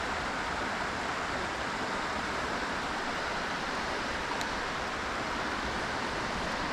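Creek water running steadily, an even rushing sound.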